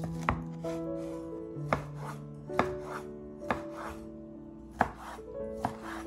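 Chef's knife cutting through a peeled lemon and knocking on a wooden cutting board, six sharp chops at an uneven pace, over soft background music.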